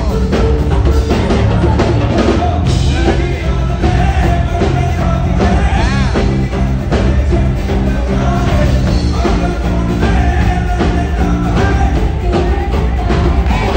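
Live band playing amplified rock-pop: a singer's voice over drums, electric guitar and heavy bass through the stage PA.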